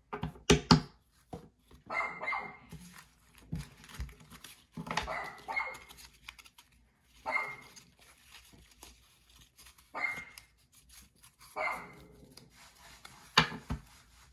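A dog barking off and on, a short bout about every two to three seconds. Between the barks come sharp knocks and rustling from a stack of trading cards being handled, loudest about half a second in and near the end.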